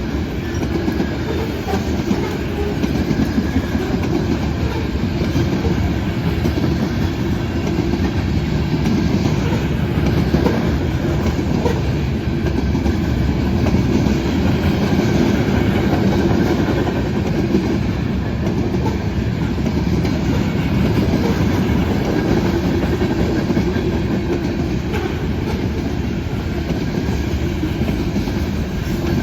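Cars of a Canadian Pacific manifest freight train rolling past, steel wheels on the rails making a loud, steady sound.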